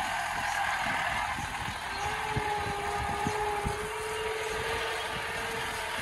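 A jeep driving slowly over a rough dirt road: its engine runs with a steady whine that drops in pitch about two seconds in. Short low knocks come from the wheels and body going over bumps.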